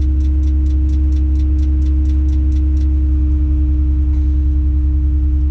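Tadano 180G-5 crane's engine running steadily, heard inside the operator's cab, with a steady whine over the low drone. A fast, regular ticking, about four or five ticks a second, runs alongside and stops about three seconds in.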